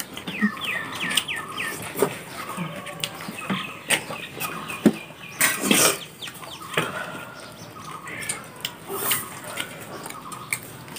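Chickens clucking in the background, with quick runs of short high calls near the start and again a few seconds in. Scattered sharp clicks and smacks of people eating by hand run alongside.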